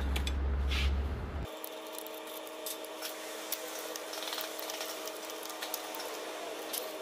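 Scattered light clicks and taps of hand tools on a tractor's mechanical brake linkage as it is adjusted to pull evenly on both sides. A steady low hum cuts off abruptly about a second and a half in, leaving a faint steady tone under the clicks.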